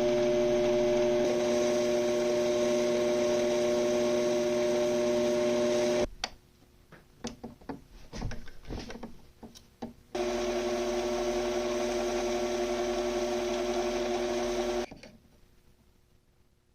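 Benchtop machine tool motor running with a steady whine and hum, stopped for a few seconds of clicks and knocks from handling the work and tools, then running again until it shuts off and spins down near the end.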